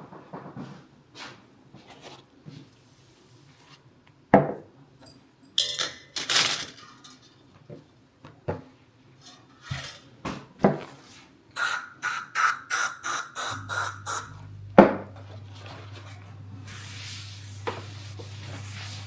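Household handling and cleaning sounds: scattered knocks and clicks, then a quick run of about ten rubbing or scrubbing strokes. A steady low hum starts about two-thirds of the way in, joined by a hiss near the end.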